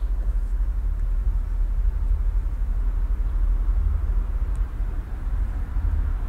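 Residual outdoor urban background at night: a steady low rumble with a faint hiss above it and no distinct source standing out.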